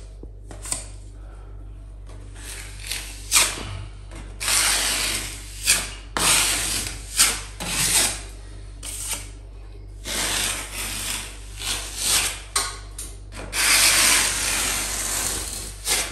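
Metal filling knife scraping along a plaster ceiling as it spreads filler into a crack, in irregular strokes, some brief and some a second or two long.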